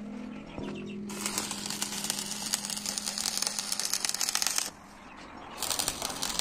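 Rapid, dense clattering and scraping of metalwork, with a steady low hum underneath. The clatter drops out briefly near the start and again about five seconds in.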